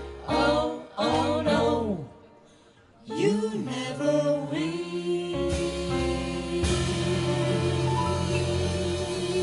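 A live vocal group singing a jazz song with band accompaniment. Short sung phrases give way to a brief near-silent break about two seconds in, then the singing resumes and a long note is held over a sustained chord.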